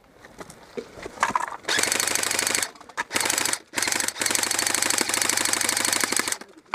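Airsoft electric gun firing on full auto in four bursts, the last and longest lasting about two seconds. Each burst is a fast, even mechanical rattle of the gearbox cycling.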